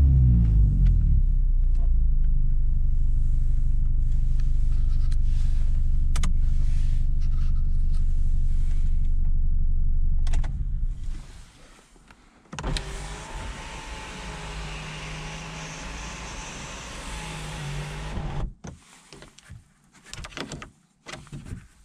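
BMW E46 320i inline-six with a loud aftermarket exhaust, its revs falling to a steady, deep idle, then shutting off about ten seconds in. A whirring noise follows for about six seconds, then a few scattered knocks.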